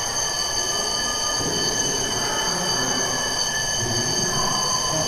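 Drill alarm sounding continuously: a steady high-pitched ringing tone that does not change, over a low, uneven background din.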